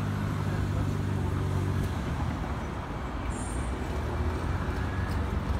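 Steady city road-traffic noise, with a low vehicle hum that fades away about two seconds in.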